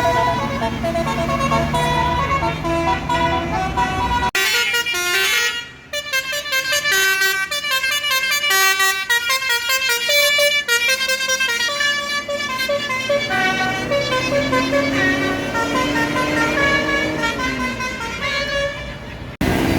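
A tour bus's Basuri musical horn playing a tune: a quick run of short notes stepping up and down, over a running bus engine. The sound cuts off abruptly about four seconds in and picks up with another stretch of horn melody.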